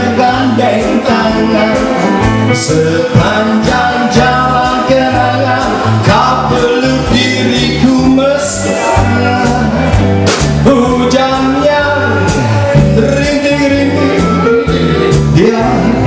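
Live band music: a man singing lead over guitar and drums with a steady beat.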